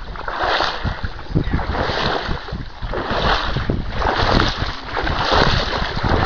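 Steps wading and swishing through shallow water and marsh reeds, about one a second, with wind buffeting the microphone.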